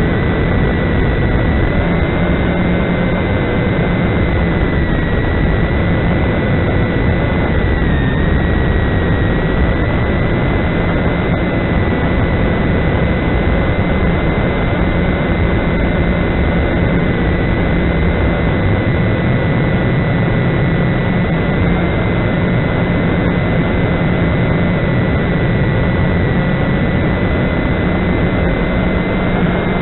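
Walkera QR X350 quadcopter's electric motors and propellers in flight, picked up by its onboard camera's microphone: a loud, steady buzz with a high motor whine that wavers slightly about 5 and 8 seconds in.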